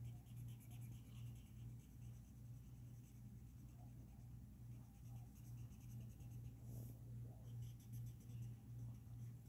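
Felt-tip marker strokes scratching on paper in short runs, heaviest near the start and again in the last couple of seconds, over a low hum that pulses about three times a second.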